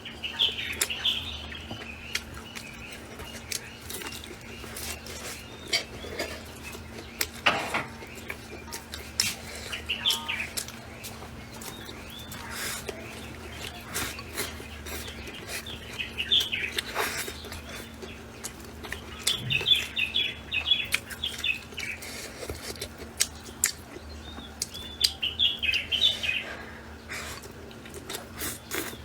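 Small birds chirping in repeated bursts of quick, high chirps, mixed with frequent sharp clicks and chewing noises of someone eating, over a faint steady hum.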